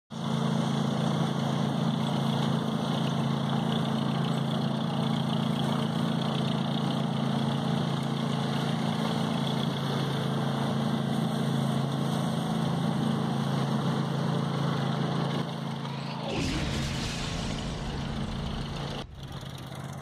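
Ford 8N tractor's four-cylinder gasoline engine running steadily as the tractor drives along. About three-quarters of the way through, a low rumble joins in.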